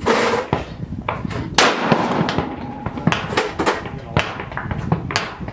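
Rifle shots echoing across an outdoor range: a loud shot at the start and another about a second and a half in, among several fainter sharp cracks.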